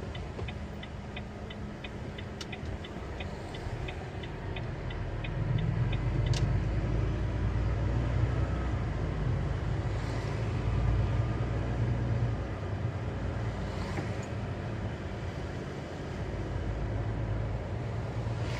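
Truck's diesel engine running steadily, growing louder about six seconds in and easing back later, with a turn signal ticking about three times a second that stops about six seconds in.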